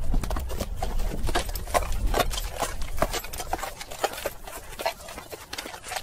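An animal sound: a run of irregular sharp knocks and clicks, several a second, over a low rumble.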